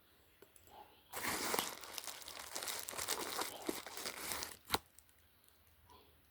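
Packaging crinkled and torn open by hand for about three and a half seconds, ending in a single sharp click.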